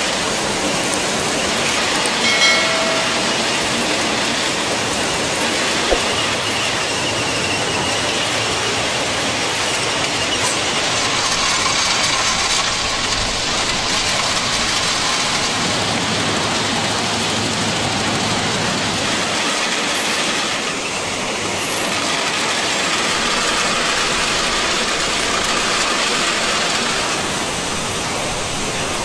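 A track renewal train working on the line: steady heavy machinery noise with rail-wheel and metal handling sounds. A short metallic clank with a brief ringing squeal comes about two seconds in, and a single sharp knock a few seconds later.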